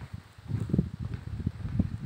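Wind buffeting a phone's microphone in uneven low gusts of rumbling noise, with a few faint clicks mixed in.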